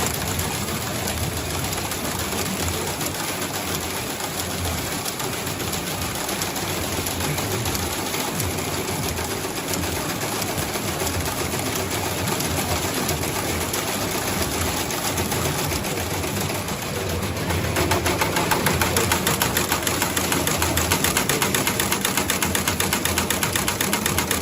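Glove sewing machine running continuously. About two-thirds of the way through it gets louder, with a fast, even stitching rhythm.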